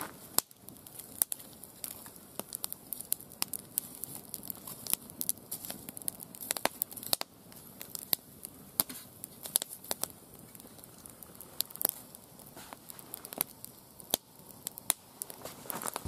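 Small wood campfire of split kindling crackling, with frequent irregular sharp pops and snaps.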